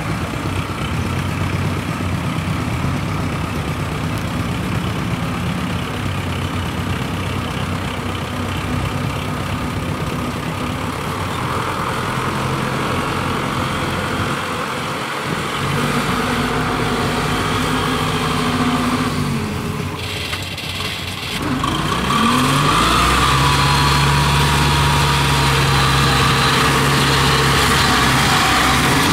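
Small engine of a tracked rice-hauling cart running under load as it hauls sacks of rice up a slope. About two-thirds in it dips briefly, then revs up and runs steadily louder.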